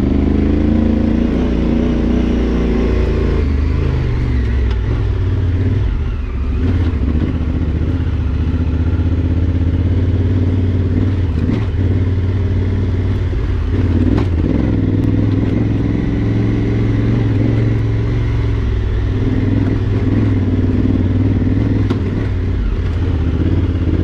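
Adventure motorcycle engine running under load on a rough dirt trail, its note rising and falling with the throttle. A few short knocks and clatter as the bike goes over rocks.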